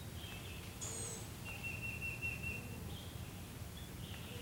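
Wild songbirds calling in woodland: a few short, high chirps, and one long, steady, high note about one and a half seconds in that lasts just over a second, over a low, steady background noise.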